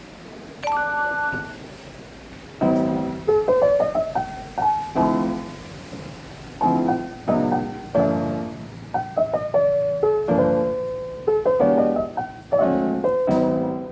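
Gentle background piano music: soft chords and a melody, each note struck and left to ring away.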